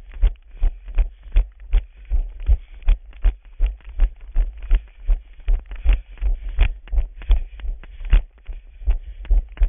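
Running footsteps: a steady thud at every stride, about three a second, with the body-worn camera jolting at each footfall.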